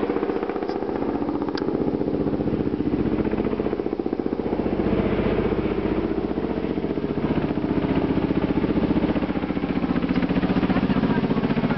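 A vehicle engine running steadily at low revs, with a fast, even pulse.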